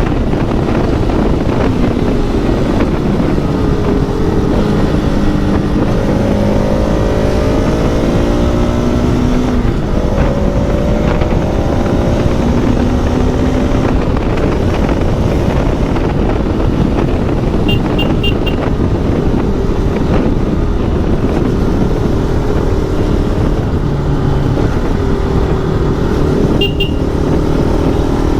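Motorcycle being ridden on the road: the engine note climbs and drops back several times as it pulls through the gears, under a steady rumble of wind and road noise on the helmet-mounted mic. Short high beeps come twice in the second half.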